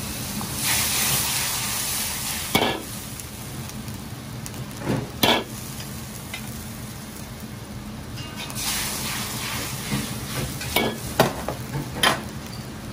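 Soup boiling hard and sizzling in a carbon-steel wok over a gas wok burner, with a steady low roar beneath. The sizzle surges louder twice, about a second in and again past the middle. A few sharp knocks ring out along the way.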